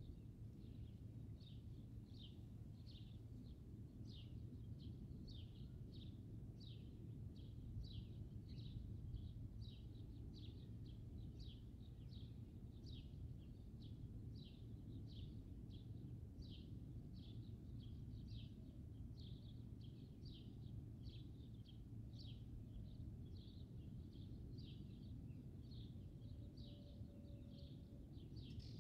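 A high, short chirp repeated evenly about twice a second, over a faint, steady low background rumble.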